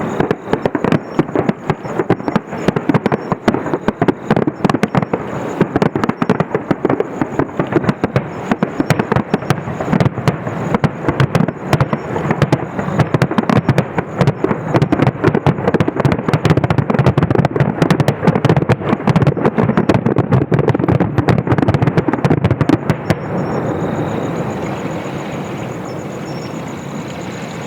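Fireworks finale barrage: a dense, rapid run of bangs and crackling that stops abruptly about 23 seconds in, followed by a steady noise that fades away.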